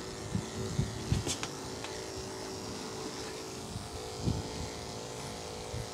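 Andis two-speed electric dog clipper running with a steady, quiet hum as it trims the dog's coat. A single light click comes about a second in.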